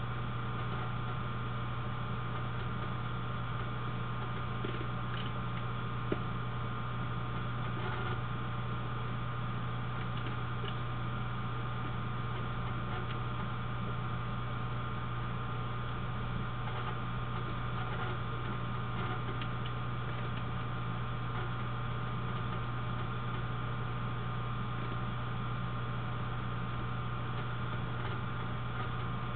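Steady electrical hum with a low drone and faint hiss, and a single click about six seconds in.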